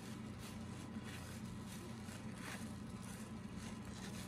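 Faint rustle of cardboard baseball cards being flipped and slid through the hands, with a couple of soft scrapes about a second and two and a half seconds in, over a steady low hum.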